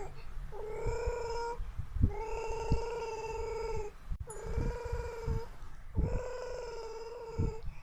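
A child making a vocal sound effect: a buzzing, trembling held note repeated about five times, each lasting a second or so with short breaks between, with low thumps on the microphone.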